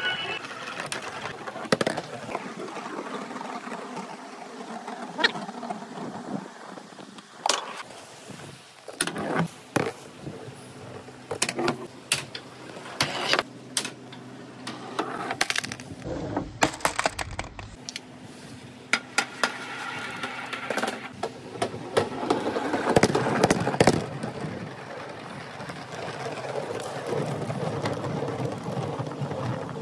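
Marbles and billiard balls rolling fast through a marble run of bamboo tubes and tracks, with a steady rolling rumble and many sharp clicks and knocks as they hit and drop. The rolling grows denser and louder a little past two-thirds of the way through.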